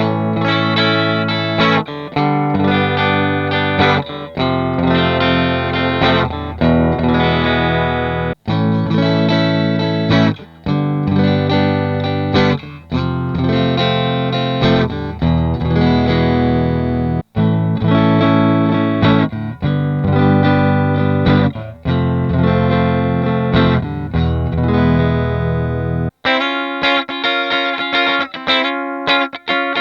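Harley Benton TE-52 Telecaster-style electric guitar played through a lightly distorted amp, strumming chord phrases with short breaks between them. About 26 seconds in, the tone turns thinner and brighter, with the low end gone.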